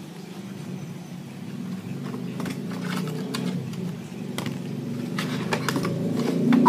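Cardboard gift box being handled and its flap opened: scattered light clicks and taps, more of them from about two seconds in, over a steady low hum.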